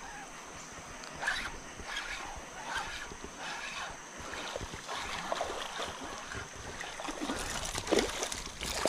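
Water splashing and sloshing in uneven strokes, as from wading through a shallow stream, busier near the end.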